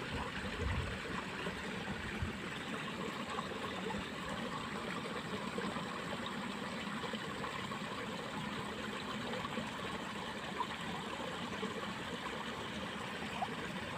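Water flowing steadily in a small irrigation ditch, a continuous trickling rush.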